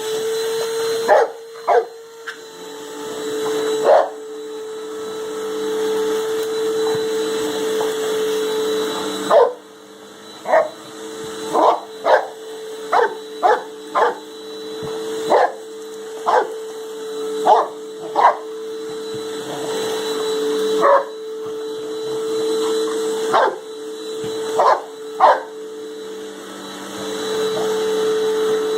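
Vacuum cleaner running with a steady whine while a boxer bulldog barks at it, about twenty single barks at irregular intervals, some in quick runs.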